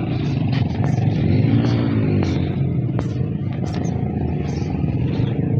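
Motor vehicle engine running steadily while driving, its pitch briefly rising and falling about two seconds in.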